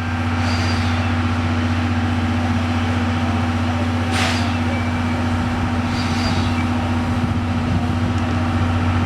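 Steady loud drone of a railway train, a strong low hum over mechanical noise that holds level, with brief rushes of noise about four seconds in and again just after the end.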